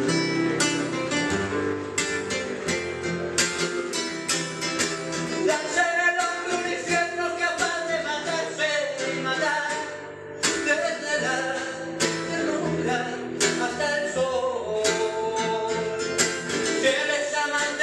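Classical nylon-string guitar played with plucked and strummed chords. A man starts singing along about five seconds in.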